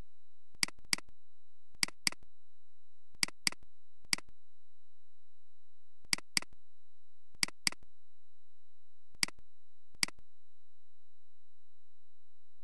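Computer mouse clicking: five quick double-clicks and three single clicks, spread over about ten seconds, as folders are opened.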